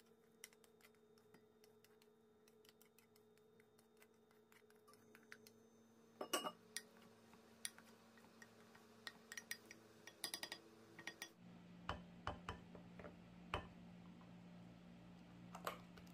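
Faint clicks and light knocks of a wooden spoon stirring corn kernels and diced vegetables in a glass measuring jug, tapping against the glass in short clusters.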